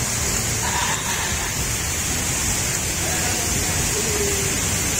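Heavy rain falling steadily onto wet paving, a constant even hiss.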